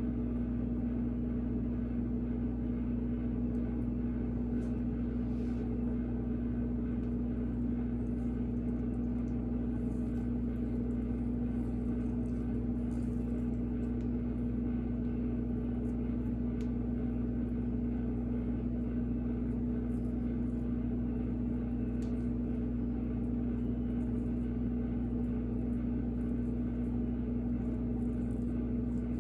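Steady low machine hum with one strong, even tone, like a motor or appliance running.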